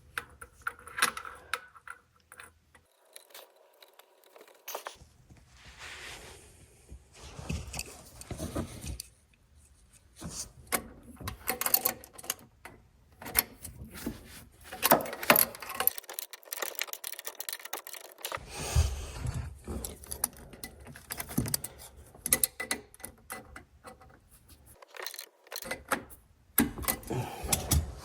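Hand tools working on a boat engine's oil pressure sender fittings: irregular metallic clinks, taps and scrapes of a wrench on the brass and steel fittings, coming in scattered clusters with short pauses between them.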